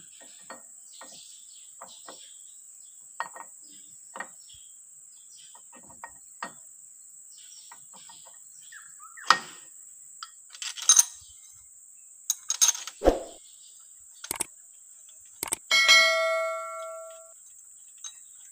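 Scattered metallic clinks and knocks of timing gears and bolts being handled and seated on a Perkins 4.236 diesel's front timing case, over a steady high-pitched whine. Just before three-quarters of the way through, a short click is followed by a bell-like chime of several tones that rings for over a second.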